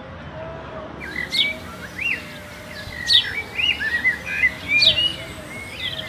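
Small songbirds chirping in quick, repeated sharp calls, several overlapping, starting about a second in.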